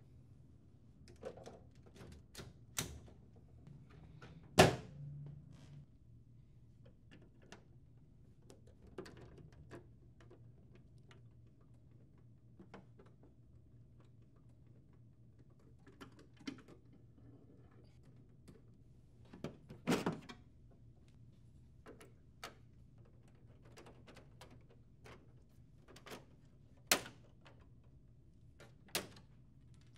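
Scattered clicks and knocks of hard plastic printer panels, knobs and covers being handled and closed. There is a loud knock about five seconds in, a double knock about twenty seconds in, and sharp clicks near the end.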